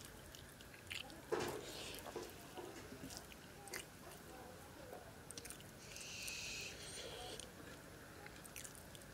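Hand-eating sounds: fingers mixing and squeezing soft flattened-rice pulao on a clay plate, with faint chewing and scattered small clicks. A sharp click about a second and a half in, and a short hiss about six seconds in.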